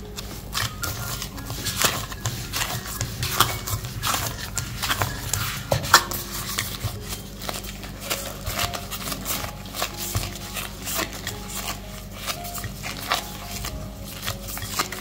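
Bread dough being kneaded by hands in disposable plastic gloves in a glass bowl: irregular taps, knocks and squishes of dough and hands against the glass, busiest in the first half and thinning out as the dough comes together into a ball.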